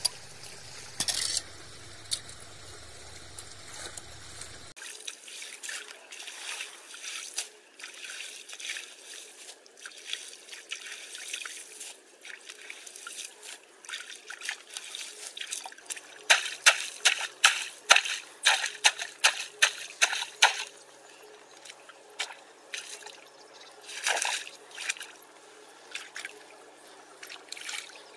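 Muddy water trickling and splashing as hands pull tangled branches and debris out of a clogged drain channel, with water running through. A run of louder, rapid splashes comes past the middle.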